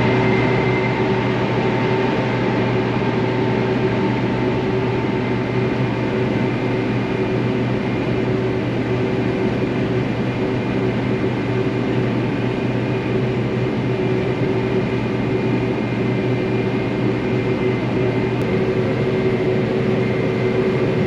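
Cotton picker running steadily: a constant engine and machinery drone with a few steady whining tones over it.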